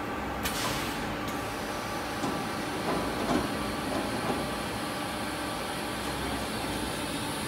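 Foundry sand-mold handling and conveying line running, with a steady mechanical rumble as a mold flask rides along the pallet-car track. A short hiss comes about half a second in, and a few light knocks around the middle.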